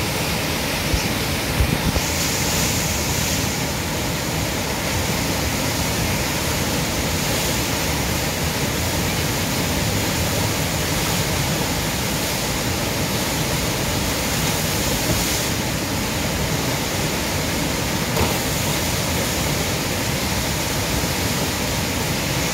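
Steady rush of fast, flood-swollen river water churning through a standing surf wave.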